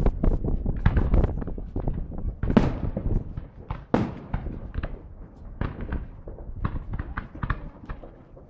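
Fireworks display: aerial shells bursting in sharp bangs, the loudest two about two and a half and four seconds in, followed by a quick run of smaller cracks and pops. Wind rumbles on the microphone in the first second.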